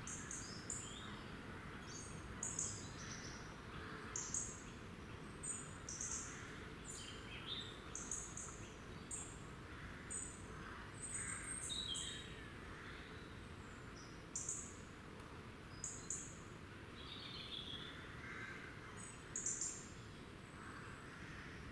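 Small woodland songbirds calling: many short, high, thin notes repeated every second or so, with a few lower sliding notes, over a faint steady background hiss.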